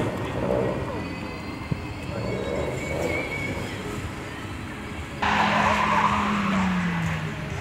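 BMW E30 316i engine running under throttle as the car drives away across a snow and ice course. About five seconds in a louder rush of noise sets in, with the engine note falling, as the car slides through a turn on the snow.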